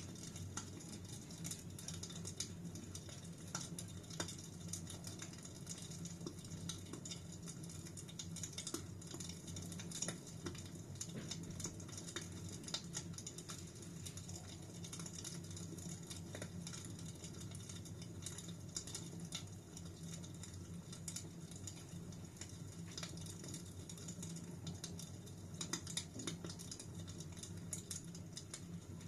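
Wood fire burning in a fireplace: a steady low rumble of flames with irregular small crackles and pops.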